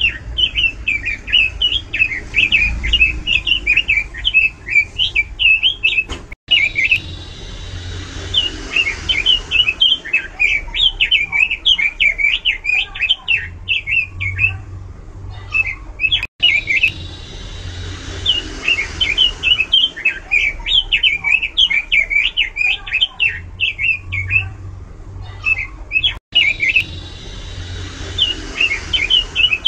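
Pekin robin (red-billed leiothrix) in full, loud song: fast, varied warbling phrases of quick rising and falling notes with short pauses between them. The same stretch of song repeats about every ten seconds, broken by brief dropouts.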